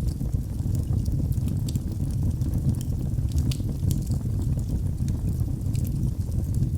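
Wood fire burning in a fireplace: a steady low rumble of flames with frequent small, sharp crackles and pops scattered throughout.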